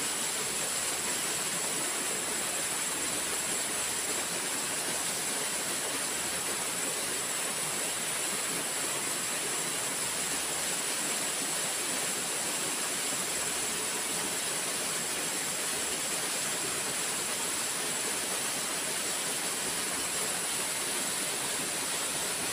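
Steady rushing of flowing river water, an even noise with no breaks, with a steady high-pitched drone on top.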